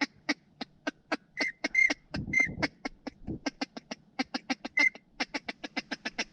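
Rapid chatter of short, sharp duck quacks, about five or six a second, going on without a break.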